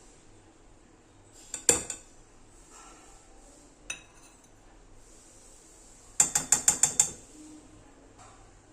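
Sharp metallic clicks: a short cluster of three or so, a single click a couple of seconds later, then a rapid run of about seven clicks close together.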